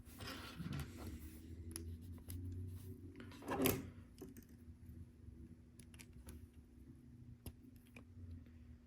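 LEGO pieces being handled and pressed together: scattered light plastic clicks, with one louder burst of handling noise about three and a half seconds in.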